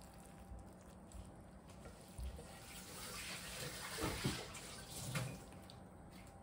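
Soft wet squishing as young radish kimchi is lifted with tongs and dropped onto sauce-coated noodles in a bowl, with two louder wet plops about a second apart in the middle.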